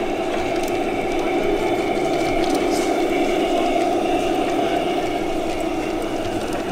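Large-scale model diesel shunter running along the layout, giving a steady engine-like hum, with people talking in the background.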